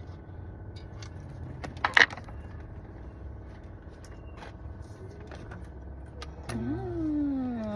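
Hand tools working on a car's steering-wheel screws and trim: scattered light clicks, with one sharp metallic clink about two seconds in. Near the end a voice starts, sliding up and down in pitch.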